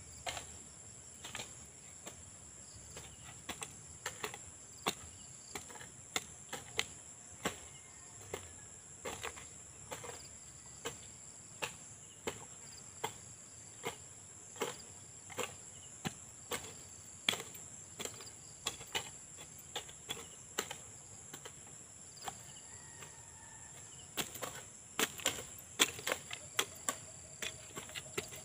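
Hand hoe blades chopping into soil and weeds, a sharp strike about once a second, coming faster near the end. A steady high insect chorus runs underneath.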